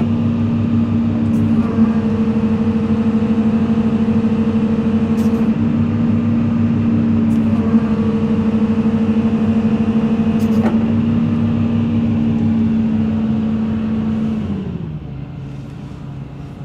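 Hitachi ZX200-5G excavator's diesel engine running steadily at high idle while the hydraulic pumps are twice pushed over relief, each time for a few seconds, a higher whine joining the engine note as pump pressure climbs to about 37.5 MPa. Near the end the engine speed drops to a lower idle.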